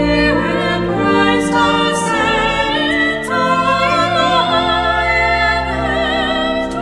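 Two women's voices singing a hymn in harmony, with a wide vibrato on the held notes. Beneath them, sustained low notes from an accompanying instrument.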